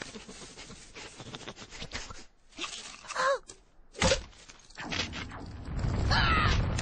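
Cartoon sound effects for an animated saber-toothed squirrel character: a rushing noise, short squeaky cries about three seconds in and again near the end, and a sharp thwack about four seconds in. A loud low rush builds over the last two seconds as it lunges.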